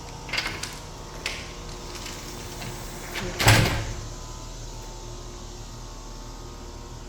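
Screen room door swinging shut with one thud about three and a half seconds in, after a few lighter clicks, over a steady low hum.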